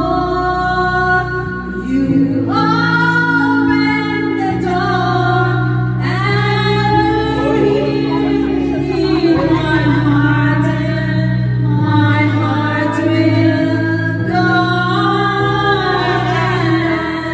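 A woman singing karaoke into a microphone over a backing track, holding long notes.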